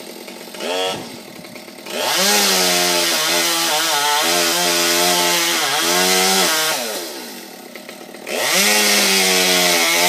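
Two-stroke chainsaw revving: a short burst about a second in, then a run at full throttle of about five seconds whose pitch sags twice as the chain cuts wood, a drop back toward idle, and a second full-throttle run near the end.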